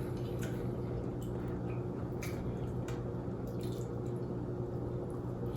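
Wet eating sounds from a saucy seafood boil: scattered short sticky clicks and squishes of mouths and fingers working through the food, over a steady low hum.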